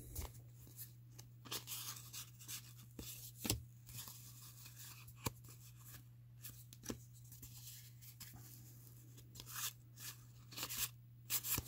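1987 Fleer baseball cards being flipped through by hand: the cardboard cards slide against each other and tap in scattered soft swishes and ticks, over a low steady hum.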